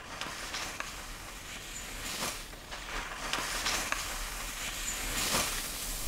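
Fish-tail skis carving through spring snow: a run of short scraping hisses as the edges bite on each turn, getting louder near the end.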